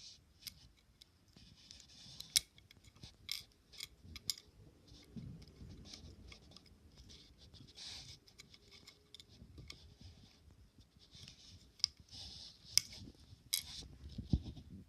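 Lego Technic pieces being handled and pushed together: a string of sharp plastic clicks with light scraping and rustling between them.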